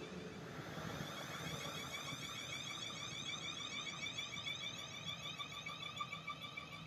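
Class 450 Desiro electric multiple unit running past, with a steady whine of several pulsing tones from its traction motors over wheel-on-rail noise.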